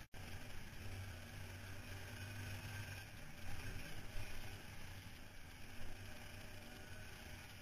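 An ATV being ridden along a rough dirt trail, heard from on board: a steady low engine drone under a rush of wind and road noise, with a few short jolts from bumps in the middle. The sound cuts out for an instant right at the start.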